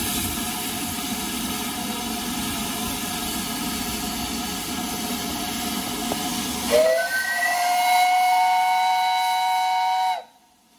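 Steady hiss of escaping steam from the BR Standard Class 5 steam locomotive 73082 'Camelot'. About seven seconds in, the hiss gives way to the engine's loud whistle, which sweeps up in pitch as it opens, holds for about three and a half seconds, and then cuts off abruptly: the departure whistle.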